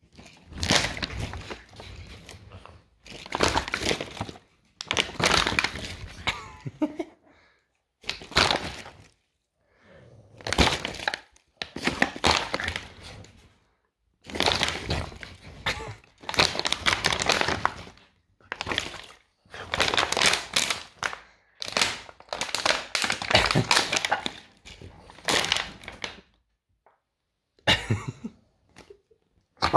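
Plastic bottle crackling and crunching in repeated bursts, each a second or two long, with short pauses between them.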